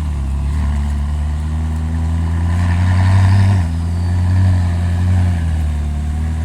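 McLaren 600LT's twin-turbo V8 idling, its revs creeping up and dropping back about three and a half seconds in, then rising lightly twice more.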